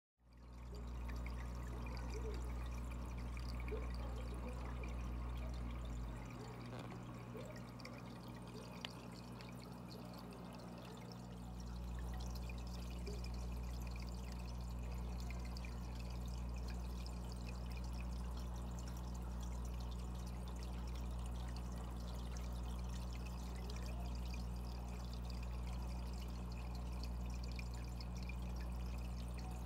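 Aquarium filter running: water trickling and splashing steadily over a low electrical hum from the pump. The deepest part of the hum drops away for a few seconds about six seconds in, and there is one small click near the nine-second mark.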